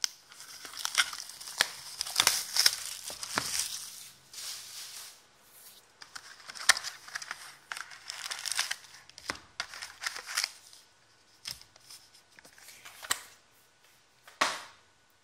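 Plastic shrink wrap being torn off a trading card box, then the foil card packs crinkling and rustling as they are handled and lifted out, in irregular bursts. One sharper knock comes near the end.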